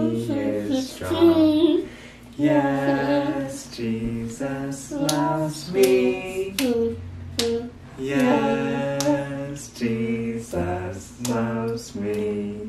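A woman's voice singing a melody in held notes, with lower sustained notes underneath.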